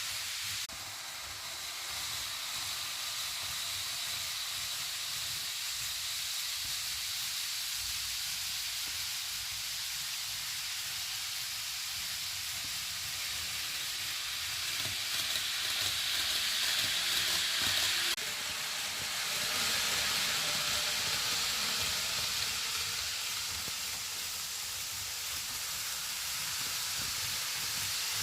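N gauge model train of the Kintetsu 80000 series 'Hinotori' running on its track, a steady hiss of small wheels on rail and motor that swells louder past the middle and drops off sharply about two-thirds of the way through.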